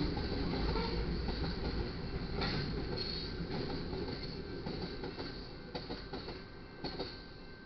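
Freight train's covered hopper cars rolling past, wheels rumbling and clattering over the rails with a few sharp clanks. The sound fades as the end of the train clears the crossing.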